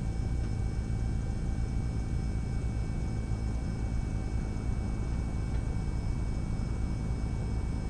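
Steady low hum with a faint hiss and a few thin, steady high whines, unchanging throughout, from powered electronics on a repair bench; no distinct events.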